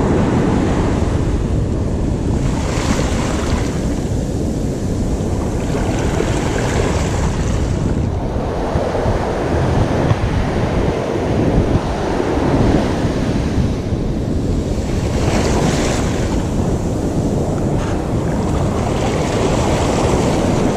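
Ocean surf washing and breaking in shallow water, with heavy wind noise on a body-worn camera's microphone. It is a steady roar that swells a little around the middle.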